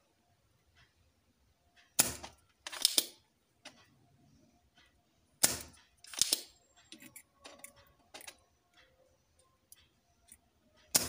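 Spring-loaded desoldering pump (solder sucker) snapping as it is fired to suck molten solder off the switch's joints on a circuit board and re-cocked. The loud clacks come in two pairs, about two and five and a half seconds in, with one more near the end.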